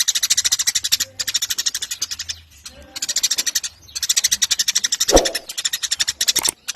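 Eurasian tree sparrows (burung gereja) chattering: long runs of rapid high chirps, about a dozen a second, broken by brief pauses. About five seconds in comes one louder, lower call that falls in pitch.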